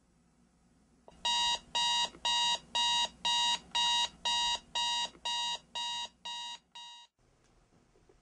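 Electronic alarm clock beeping, about a dozen short beeps, roughly one and a half a second; the later beeps grow fainter before it stops abruptly.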